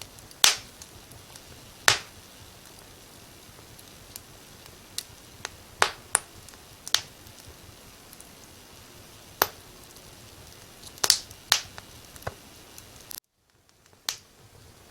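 Wood fire crackling: sharp, irregular pops and snaps over a steady hiss, the loudest two in the first two seconds. The sound cuts out for under a second near the end.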